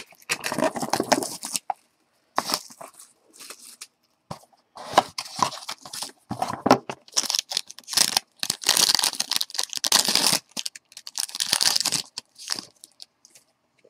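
Small cardboard trading-card box opened and the plastic wrapper of the card pack inside torn and crinkled, in short irregular rustles and rips that are busiest about eight to ten seconds in.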